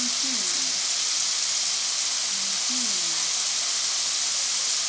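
Potato fries deep-frying in hot oil in an electric deep fryer: a steady, dense sizzle. The fries are close to done, just turning light brown.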